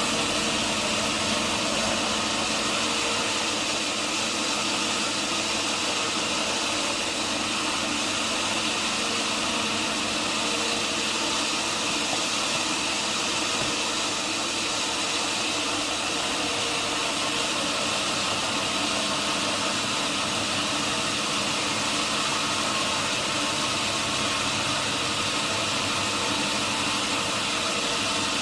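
Sawmill machinery running steadily: an engine and saw drone at an even level, with no change through the whole stretch.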